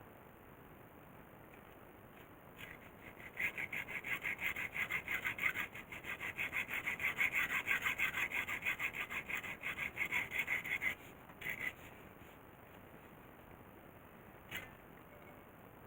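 Rapid rhythmic rasping strokes, about five a second, lasting some eight seconds, then a brief scrape and a single sharp click near the end.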